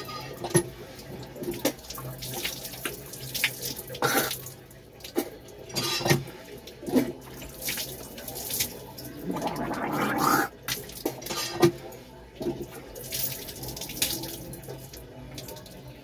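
Water splashing in irregular bursts as a person washes at a tap, scooping water up to the face, with a longer spell of rinsing about nine to ten seconds in.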